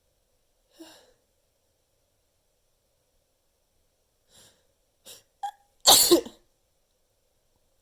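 A person sneezing once, loudly, the sneeze lasting about half a second near the end, after a few short quick breaths with a brief voiced catch just before it.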